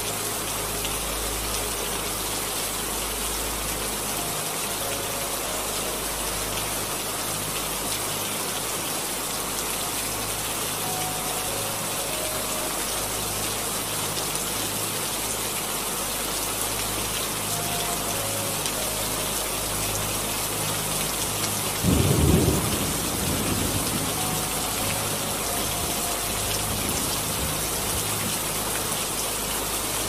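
Steady rain falling, with a sudden clap of thunder about 22 seconds in that rumbles away over the next couple of seconds.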